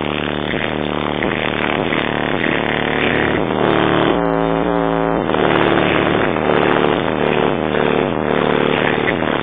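Electronic music played loudly through a car stereo system, with a repeating beat and pitched synth lines.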